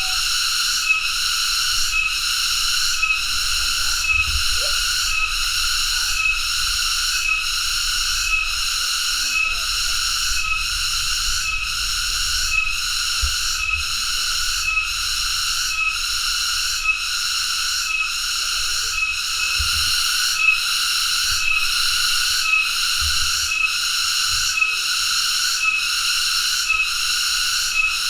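Cicada singing: a continuous high buzz that pulses about twice a second.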